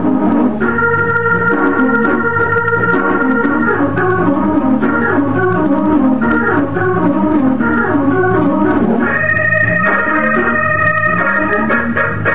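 Hammond organ played in a gospel style: high chords held over quick-moving lower notes, with a new, higher chord coming in about nine seconds in.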